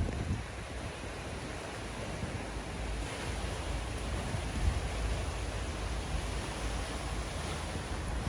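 Steady hiss of rain, with wind rumbling on the phone's microphone.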